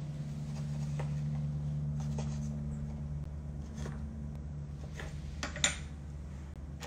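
A knife cutting a lime on a wooden cutting board: a few soft knocks, with one sharper knock about five and a half seconds in, over a steady low hum.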